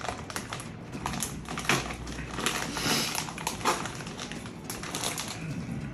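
Close-up snack-eating noises: irregular clicks and crinkles from handling gummy candy and its packaging, with a brief hiss about halfway through.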